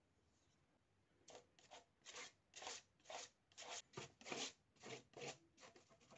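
Palette knife scraping acrylic paint across paper in a quick run of short strokes, about two a second, starting about a second in.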